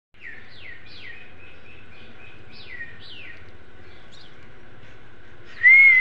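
Indian ringneck parakeet calling: a few short, falling chirps in the first three seconds, then near the end a much louder, drawn-out whistle-like call that rises and then holds its pitch.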